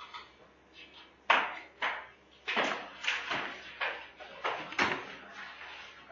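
A run of about eight sharp knocks over some three seconds, the first, about a second in, the loudest.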